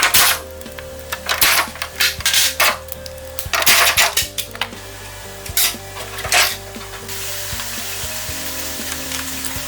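Metal tools clanking and scraping in irregular sharp strikes over steady background music. About seven seconds in, a steady hiss takes over.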